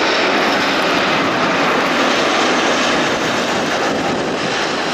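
An Airbus A380 airliner landing: its four jet engines make a loud, steady rushing noise that eases slightly about three seconds in, as the main wheels are on the runway.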